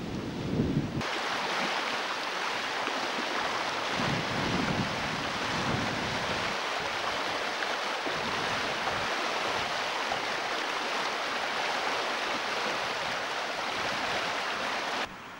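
Turbulent floodwater rushing and churning with a steady, loud noise. Wind buffets the microphone in the first second and again briefly around four seconds in.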